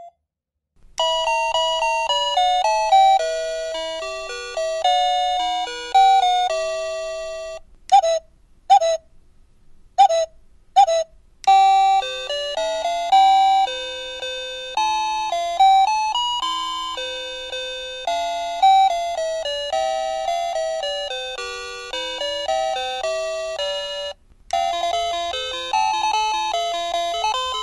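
Ang USA wireless doorbell's plug-in receiver chime playing through several of its electronic ringtones in turn: stepping note melodies, with a few short separate dings partway through and a brief break before the last tune starts.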